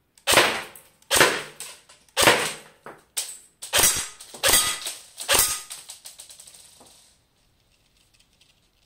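Airsoft AK-47 firing 0.25 g BBs at 350 fps in single shots, about seven sharp cracks roughly a second apart with a few smaller clicks between, each trailing off briefly. A few faint ticks follow near the end.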